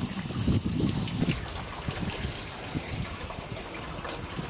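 Water from a garden hose spraying and splashing onto a fiberglass boat deck, a steady hiss, with wind rumbling on the microphone for the first second or so.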